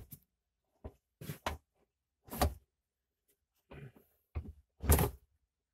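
Exit door handle of a McDonnell Douglas airliner being pulled and turned by hand: a series of short, irregular clunks and knocks, the loudest near the end.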